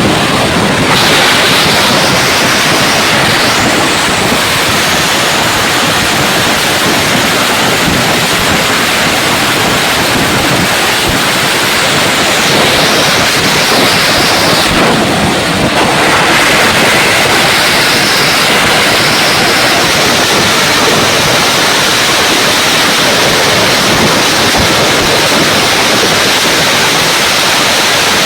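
Dense fireworks barrage: a continuous loud wash of crackling and popping, with many sharp bangs mixed in, and no break.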